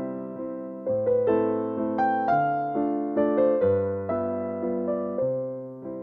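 Background piano music: a gentle melody of struck notes, each fading away, over low bass notes that change every second or so.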